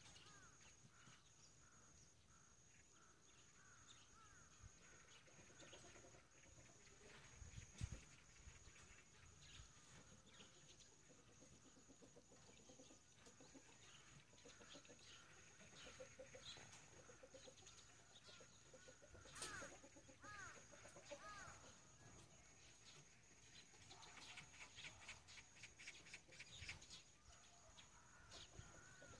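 Faint clucking of chickens, with scattered short calls that come thicker about two-thirds of the way through. A thin steady high tone runs underneath.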